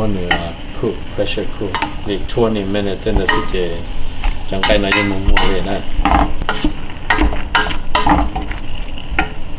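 A wooden spatula stirring deer meat and onions in a metal pressure cooker pot, with irregular scrapes and knocks against the pot while the meat sizzles as it browns.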